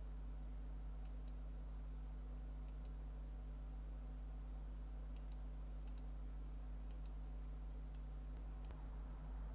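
Computer mouse clicking: about a dozen sharp clicks, many in quick pairs, over a steady low electrical hum.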